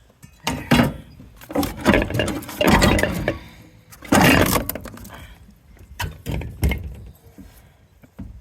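Metal parts of a soda vending machine being knocked and pried apart: about half a dozen irregular bursts of banging and clattering, with quieter scraping between them.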